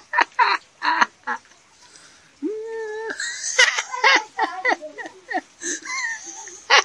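Dog whining at food: a run of short, high, wavering cries, a steady held cry about two and a half seconds in, then more bending cries.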